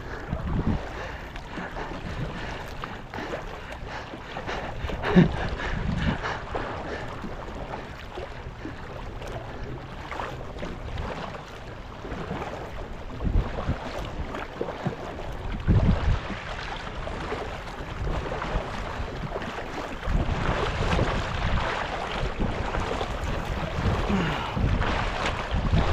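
Kayak paddling on open water: irregular splashes and swishes of paddle strokes, with wind buffeting the microphone in low thumps; a little louder for the last few seconds.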